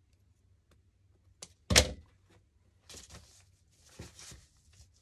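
A sharp thunk, then two short scratchy tearing sounds of about half a second each as the stitched seams of a small fabric pillow are pulled apart.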